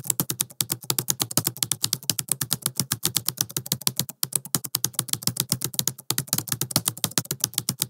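Rapid, even clicking like keys being typed, about ten clicks a second, with two brief breaks.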